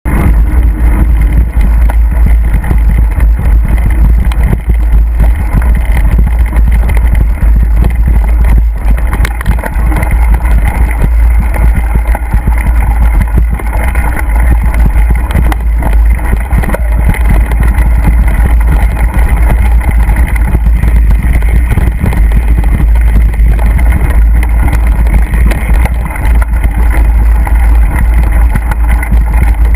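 Loud, steady wind buffeting and rumble on the microphone of a camera carried on a mountain bike ride over a rough trail, with frequent knocks and rattles from the bumpy ground.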